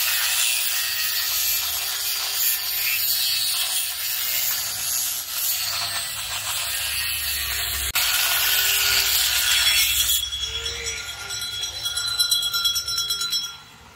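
Angle grinder with an abrasive cut-off disc cutting through a steel leaf of a used truck leaf spring: a loud, steady grinding screech. About ten seconds in the cut ends and the sound turns uneven, with a few sharp knocks, before it stops suddenly near the end.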